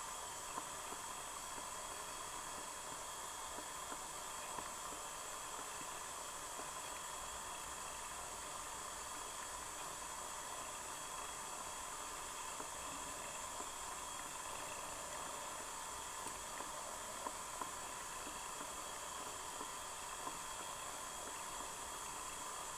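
Steady underwater hiss of stream water, with a few faint clicks scattered through it.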